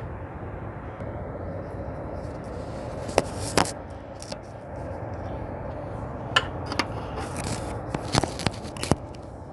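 Scattered sharp plastic clicks and light scrapes of hands working at the engine's fuel injector electrical connectors and clips, heard over a steady low hum.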